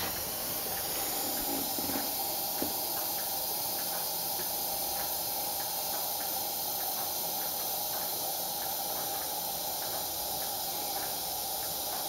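Tilley AL10 paraffin pressure lamp burning with its mantle lit, its burner giving a steady hiss.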